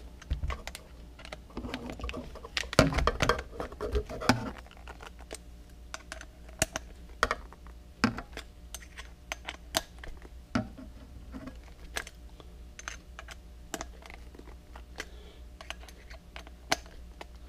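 Irregular light clicks and taps of tools and metal parts as a bicycle seat clamp is tightened down onto the seat beam, busiest a few seconds in.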